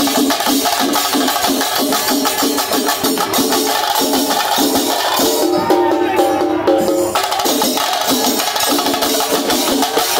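Loud festival drumming from a percussion ensemble: dense, fast strokes over a repeating pitched beat about two to three times a second. A held melody rises over the drums around the middle and cuts off sharply about seven seconds in.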